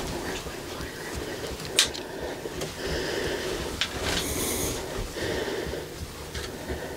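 Close, hushed sounds from inside a hunting blind: breathing and small movements, with a sharp click about two seconds in and a brief hiss of breath or rustling a little past halfway.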